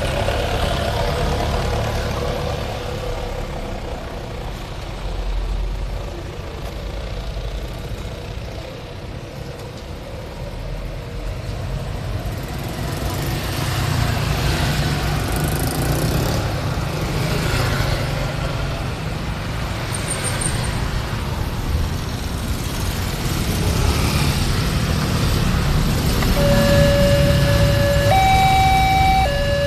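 Road traffic running past, then near the end the level crossing's Alkmaar-brand electronic warning siren starts up, stepping back and forth between a low and a high tone.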